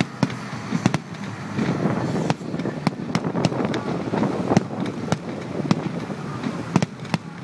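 Fireworks display: aerial shells and low-level comets going off in more than a dozen sharp bangs and cracks at uneven intervals, over a continuous rushing background noise.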